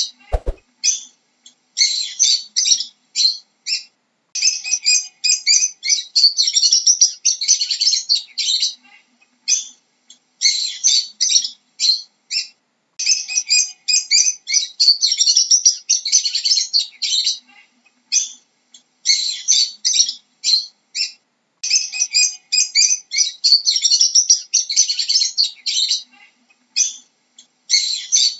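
Lovebird chirping in quick, high-pitched runs, each bout lasting a few seconds with short pauses between.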